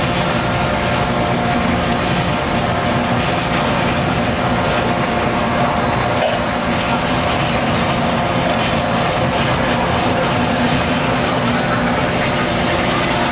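Steady loud roar of a tofu kitchen's stove and equipment, with a constant hum running through it, as large aluminium pots of soy milk heat on the burners.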